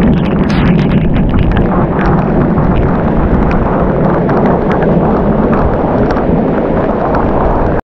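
Heavy rainstorm with gusting wind buffeting the microphone, and raindrops striking the camera and gear in many small ticks. It cuts off suddenly near the end.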